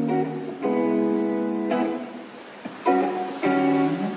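Background music: an acoustic guitar strumming held chords that change about once a second.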